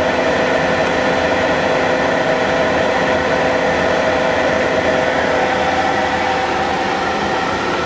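Steady mechanical hum of running machinery with a few held tones over an even noise, unchanging throughout.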